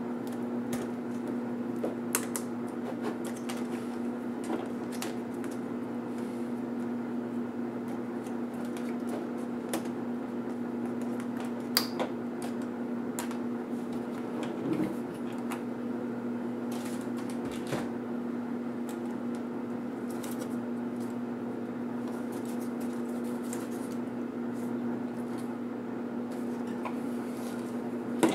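A steady low hum with scattered sharp clicks and taps from the Samsung NP305E7A laptop's plastic top case being handled, and a cluster of knocks near the end as the case is laid down on the desk.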